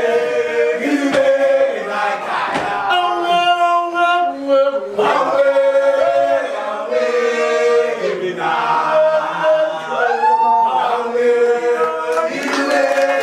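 A group of young men singing a cappella in harmony, holding long notes together and moving from chord to chord.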